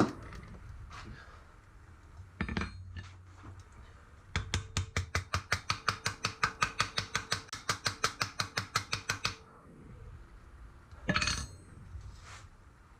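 A hammer tapping quickly and evenly on a rivet, about five light metallic strikes a second for some five seconds, forming the rivet's head. A single knock comes before the run and another after it.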